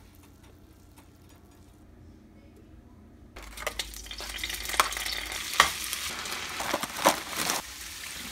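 Food sizzling in a hot frying pan, starting abruptly about three seconds in, with a metal spoon knocking and scraping against the pan as pieces of tofu skin are pushed in. The first few seconds are faint.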